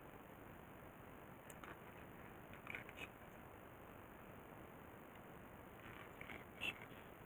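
Faint steady hiss with a few short, light clicks and taps of small hard parts being handled, the sharpest a couple of seconds in and again near the end.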